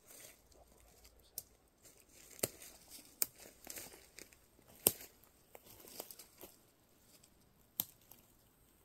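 Irregular soft rustling and crackling, broken by about five sharp snaps or clicks; the loudest comes near the middle.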